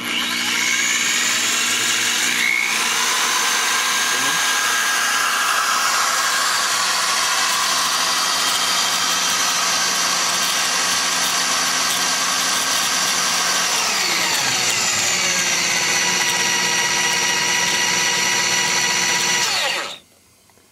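Electric hand drill, its trigger worked by a servo, spinning up and turning a spool to wind solder at about half speed, a steady whine. About two-thirds through it slows, the whine falling in pitch, and it stops shortly before the end.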